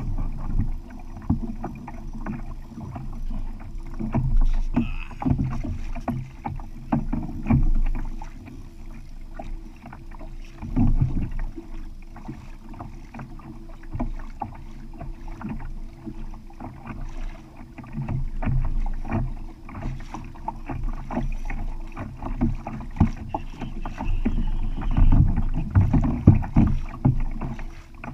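Water slapping and knocking against a kayak's hull in a long run of irregular bumps and splashes.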